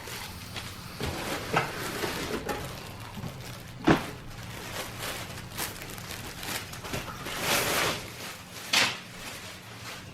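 Back massager being unpacked from its box: rustling of packaging and scattered light knocks as parts are handled, with a sharper knock about four seconds in.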